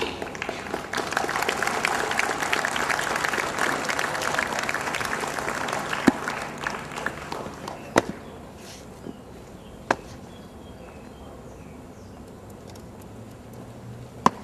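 Audience applause, a dense patter of many hands clapping, which builds in the first second and fades away about seven seconds in. A few isolated sharp taps follow.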